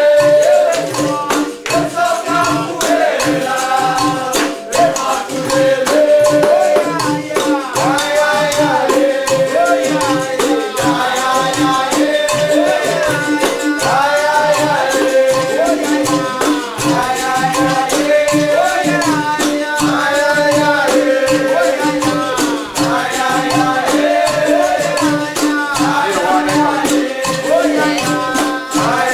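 Capoeira roda music: berimbaus with their caxixi shakers, pandeiro tambourine and atabaque hand drum playing a steady rhythm, with group singing in phrases over it.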